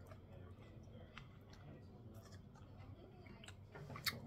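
Faint mouth sounds of someone chewing a bite of yellow Bhut Jolokia (ghost pepper), with a few soft, scattered clicks.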